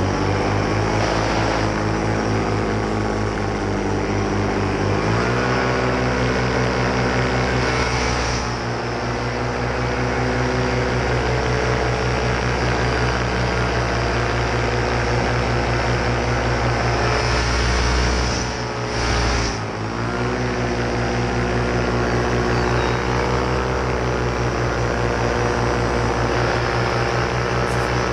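Paramotor engine and propeller running under power, its pitch stepping up about five seconds in as the throttle opens, dipping briefly near two-thirds of the way through, then climbing back to a steady note.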